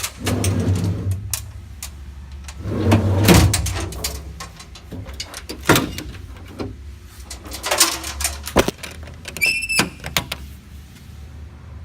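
Metal compartment doors, latches and a slide-out tray on a truck's utility body being worked: a run of clanks and knocks, with louder bangs near the start and about three seconds in, single sharp knocks later, and a short high squeak about nine and a half seconds in.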